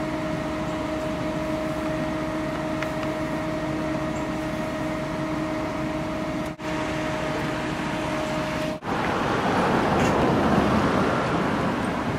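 A car driving, with a steady engine drone and road noise. The sound cuts out abruptly twice, and after the second break it turns into louder, rougher road noise without the drone.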